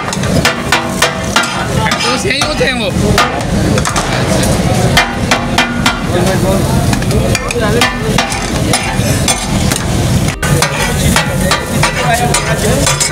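Metal spatulas clattering and chopping on a large flat iron tawa griddle, quick irregular clanks as fish katakat is chopped and stirred. This is the 'katak-katak' clatter the dish is named for.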